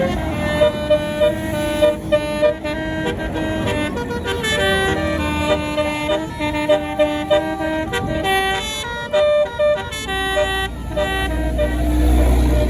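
Tour bus's basuri telolet air horn playing a tune of short stepped notes. A bus engine's low rumble swells near the end.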